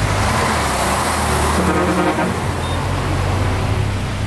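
Road traffic: a motor vehicle's engine running close by, with a surge of road noise in the first couple of seconds as traffic passes.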